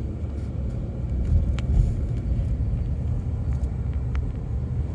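Low, steady rumble of a car driving, heard from inside the cabin, with two faint ticks.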